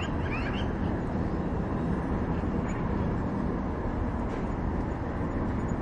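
Steady low rumbling noise, with a few faint high chirps near the start.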